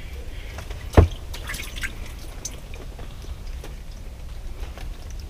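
A bluegill is pulled up out of an ice-fishing hole. There is a single sharp knock about a second in, then splashing and dripping water.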